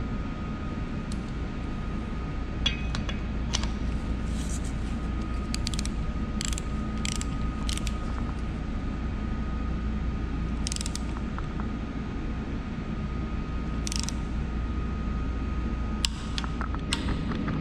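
A socket wrench with an extension ratcheting in scattered clicks and short runs of clicks as the oil pressure relief valve housing is tightened. Under it runs a steady workshop hum with a faint high whine.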